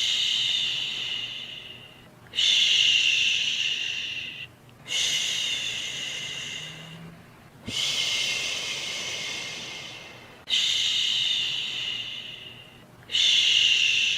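Soothing 'shhh' shushing for lulling a baby to sleep, repeated in long hisses about every two and a half seconds, each starting sharply and fading away.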